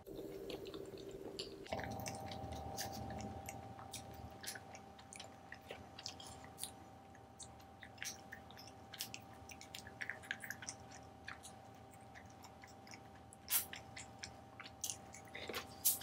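Close-miked chewing of pizza: soft wet mouth clicks and smacks, scattered irregularly. Near the end come a couple of louder sharp clicks.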